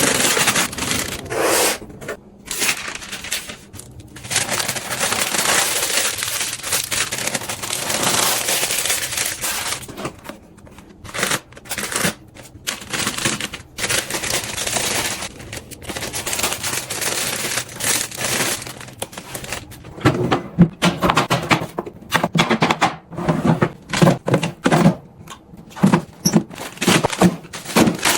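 Hands handling packaging and containers: long stretches of plastic crinkling and rustling, then a quick run of clicks and taps as items and lids are set in place.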